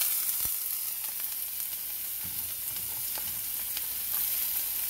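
Diced onions sizzling in hot oil in a frying pan: a steady frying hiss with a few faint pops.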